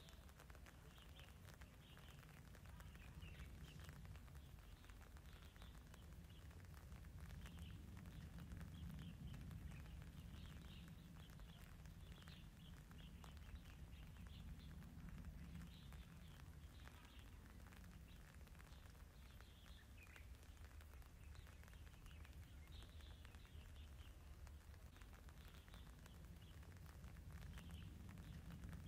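Faint chirping of small birds, short calls scattered throughout, over a low steady outdoor rumble.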